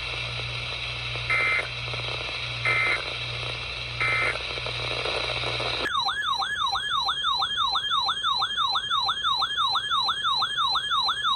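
Emergency Alert System audio: over radio static, three short screeching data bursts about a second and a half apart, the end-of-message code closing the previous warning. About six seconds in, the static stops and a loud siren-like alert tone starts, warbling up and down about three times a second.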